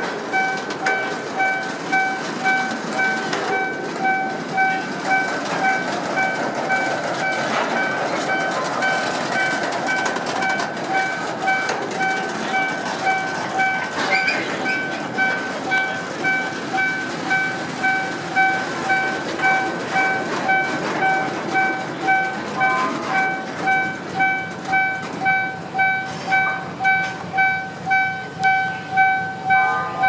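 Freight train of tank wagons rolling slowly over a level crossing, wheels rumbling and clacking in a regular beat that grows stronger near the end. Over it the crossing's warning signal sounds a steady, rapidly repeating electronic tone.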